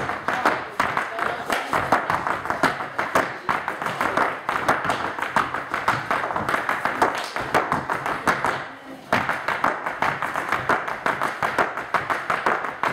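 Audience clapping and applauding: many hands clapping together in a dense, steady patter, dipping briefly about nine seconds in.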